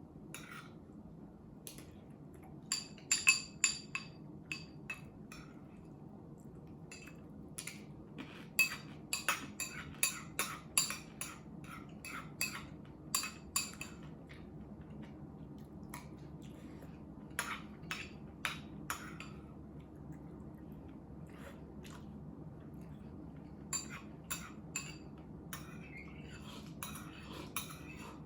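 Eating utensils clinking and tapping against ceramic dishes, in irregular groups of sharp clicks with a short ringing, over a steady low hum.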